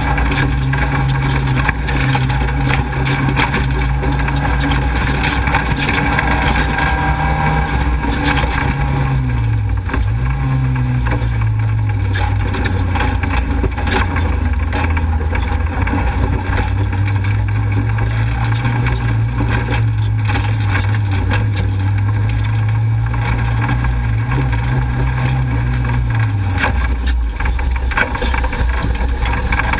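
Off-road race vehicle's engine running hard on a dirt course over a steady rush of wind and road noise. The engine note drops in pitch about a third of the way in, holds steady, then falls away near the end as the driver comes off the throttle.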